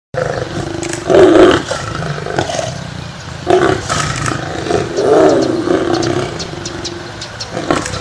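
Lion roaring in several loud calls, the loudest about a second in, with more roars about three and a half and five seconds in, over a steady low rumble.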